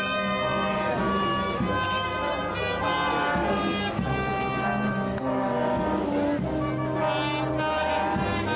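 Brass band playing a slow procession march, long held brass notes over a steady bass line.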